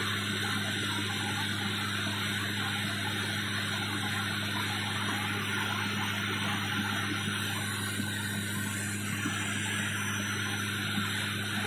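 Steady drone of a turboprop airliner's propellers and engines heard inside the passenger cabin, with a low hum from the propellers under a hiss of engine and air noise, during the descent to land.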